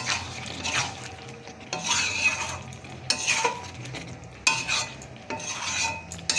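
A spatula stirring thick chickpea curry in a pan, scraping the pan about once a second with an occasional click against its side, over a light sizzle of the cooking masala.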